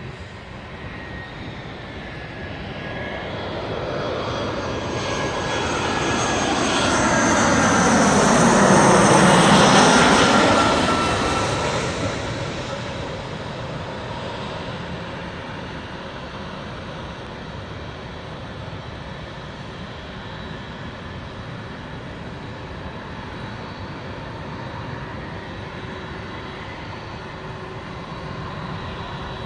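Jet airliner passing close by: the engine sound grows louder to a peak about nine seconds in, drops in pitch as it goes past, then fades. A steadier, quieter jet engine noise carries on afterwards.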